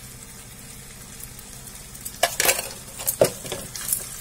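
Potatoes in masala frying with a soft, steady sizzle in a kadhai. From about two seconds in, a spatula stirs them, scraping and knocking against the pan in several quick strokes.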